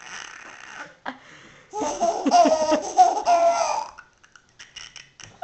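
Baby laughing: a run of giggles starting about two seconds in and lasting about two seconds.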